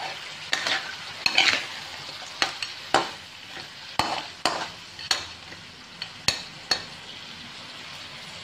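Blue crab pieces and onion sizzling in a wok while a metal spatula stirs them, scraping and knocking against the pan about a dozen times; the knocks stop about seven seconds in and the sizzling carries on.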